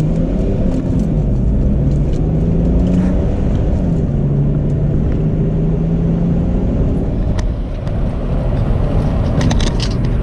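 BMW 530d's 3.0-litre turbodiesel straight-six with a straight-piped exhaust, heard inside the cabin while accelerating from a rolling launch through the gears. The engine note climbs, drops back at an upshift about three and a half seconds in, then holds steady before easing off near the end.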